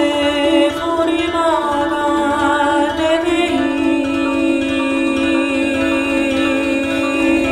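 Overtone singing by a woman's voice: held low notes with a bright whistling overtone above them that steps and glides from pitch to pitch.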